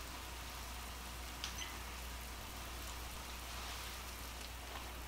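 Garlic butter and chicken broth sauce simmering in a skillet: a steady light sizzle over a low hum, with a faint click about one and a half seconds in.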